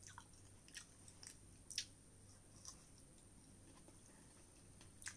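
Faint mouth sounds of chewing a fresh strawberry: mostly near silence, with a few soft clicks spread through it, the clearest a little under two seconds in.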